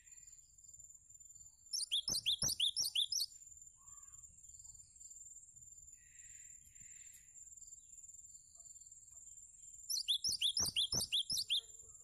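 Cinereous tit (gelatik batu) singing two quick runs of sharp, repeated falling notes, each about a second and a half long, one near the start and one near the end. A faint steady high tone runs underneath.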